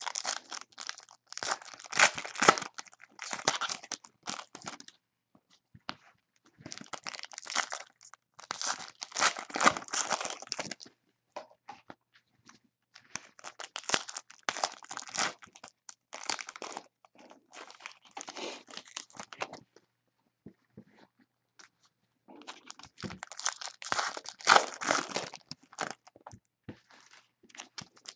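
Shiny trading-card pack wrappers from a box of Donruss basketball cards being torn open and crinkled by hand, one pack after another. The crackling tearing comes in bursts of a few seconds each, about six in all, with short pauses between packs.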